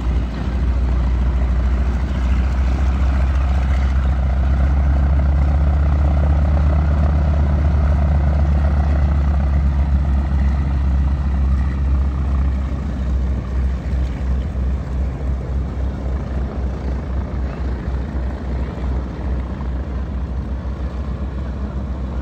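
North American T-6 Texan's Pratt & Whitney R-1340 nine-cylinder radial engine running at taxi power with its propeller turning, a loud, deep, steady drone. From about halfway through it takes on a throbbing beat of about two pulses a second and eases slightly.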